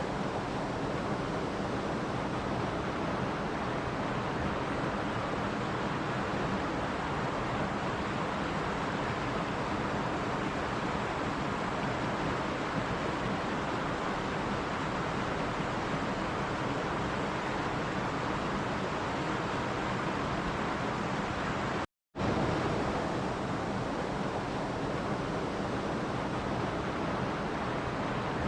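Steady, even rushing noise of a nature recording, with no distinct events. It breaks off for a split second about 22 seconds in and then carries on the same.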